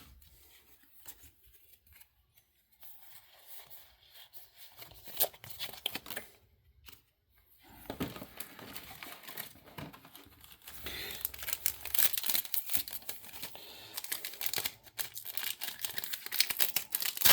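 Foil Pokémon booster pack wrappers crinkling and tearing open, with a few light rustles at first and denser, louder crinkling and ripping from about eight seconds in.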